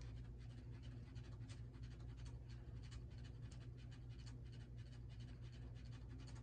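Faint irregular scratching and light ticking of a plastic action figure being handled and its joints worked, over a steady low hum.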